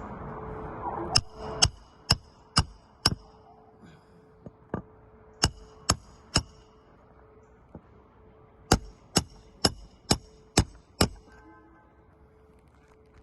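Sharp taps on something hard that rings briefly with each strike, in runs of five, then three, then six, about two taps a second.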